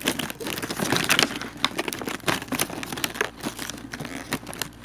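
Crinkling and irregular small clicks and crackles of something being handled close by.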